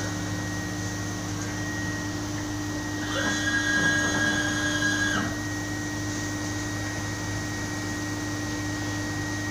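Perfecta 115 HTVC guillotine paper cutter running with a steady motor hum. About three seconds in, a louder high-pitched mechanical whine starts and lasts about two seconds as a drive in the machine runs through a movement.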